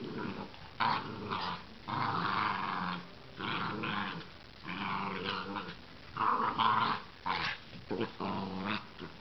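Two miniature dachshunds growling at each other in a play-fight, a run of rough growls, each up to about a second long, with short breaks between them.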